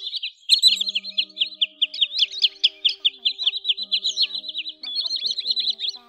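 Sandpipers calling: a fast, unbroken chatter of short, high, falling notes, several a second, with faint music underneath.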